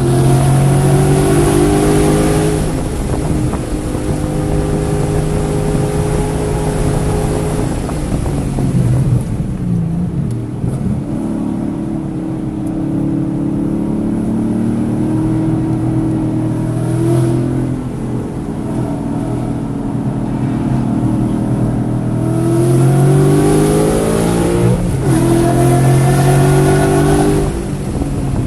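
Race-track car engine running under load, revs falling about eight seconds in, then climbing again, with a quick drop and recovery near the end as the car shifts gear. The uploader reports this session's engine was misfiring on cylinders 1, 3 and 4, blinking the check-engine light.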